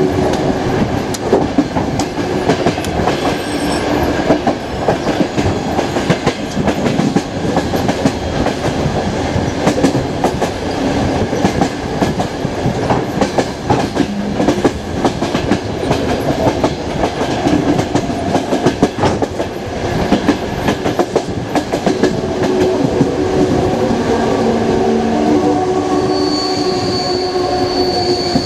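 Passenger train running along the track, heard from a carriage window: steady rumble with wheels clattering over rail joints. Steady metallic squealing tones join in over the last few seconds.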